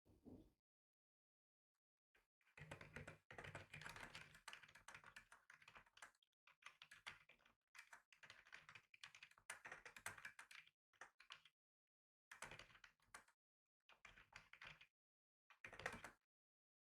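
Quiet typing on a computer keyboard: runs of rapid key clicks separated by short pauses, starting about two and a half seconds in.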